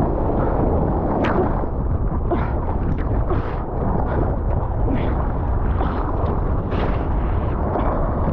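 Strong wind buffeting the microphone over the rush of breaking white water, with short sharp splashes or crackles about once a second.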